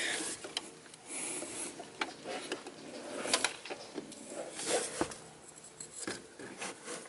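A wrench on the Audi 3.0 TDI's serpentine belt tensioner, turned clockwise to slacken the belt. It gives scattered metal clicks and knocks with faint handling noise between them.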